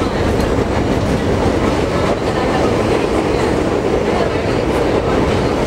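R42 subway car running along the track, heard from inside the car: a steady running noise of wheels on the rails.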